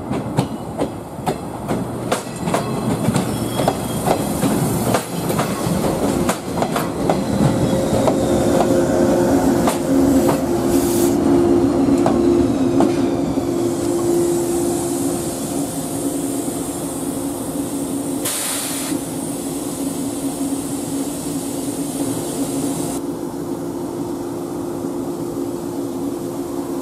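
Jōshin Electric Railway 700 series electric train (a former JR 107 series two-car set) rolling slowly past over pointwork, its wheels clicking over rail joints and switches. A steady hum sets in about eight seconds in, with a short hiss a little past halfway.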